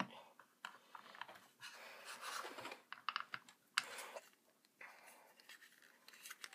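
Hands handling a small plastic prize figure on its plastic base: faint taps, clicks and scraping of plastic on plastic, with a cluster of sharper clicks a little past halfway.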